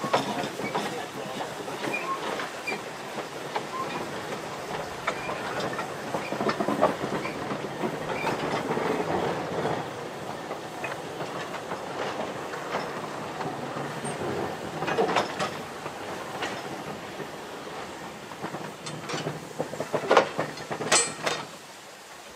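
Three small coupled narrow-gauge steam locomotives rolling slowly, their wheels clicking and clanking over the rail joints, with louder knocks about twenty seconds in.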